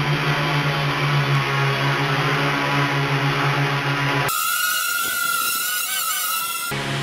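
Electric motors and propellers of a homemade wooden H-frame quadcopter, four Parkzone 480 brushless motors, running at flying power as it lifts off and climbs: a steady hum. About four seconds in the low hum cuts out abruptly, leaving a wavering higher whine for about two seconds before the hum returns.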